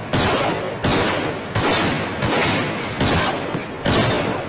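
A regular series of heavy crashing hits, one about every three-quarters of a second, each starting sharply and fading out, like a gunfire sound effect laid over an edited intro.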